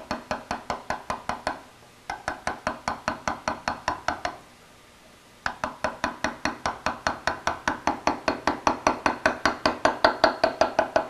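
Rapid light blows on a steel chisel cutting a V-groove letter into hard slate, about five strikes a second. The strikes come in three runs, with a short pause about two seconds in and a longer one just past four seconds.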